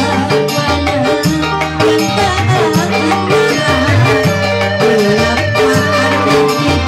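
Live dangdut band music: a steady hand-drum rhythm over a bass line and melody.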